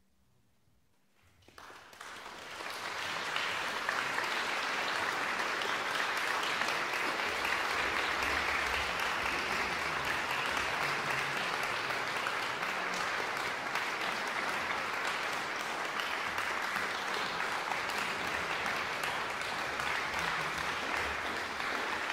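Audience applauding in a concert hall: after about a second and a half of near silence, the clapping swells quickly and then holds steady.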